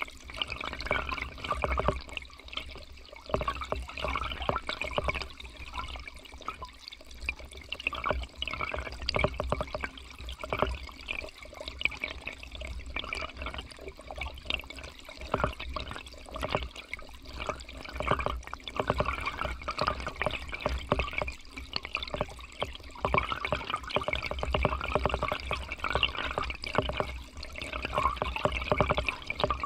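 Shallow river current heard through a camera submerged among riverbed stones: steady gurgling and bubbling with a low rumble and many small crackles, swelling and easing every few seconds.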